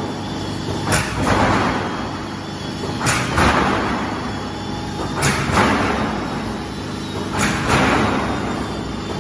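Silo corrugated-sheet roll forming machine running: a sharp clank four times, about every two seconds, each followed by a rush of noise lasting under a second, over a steady machine hum.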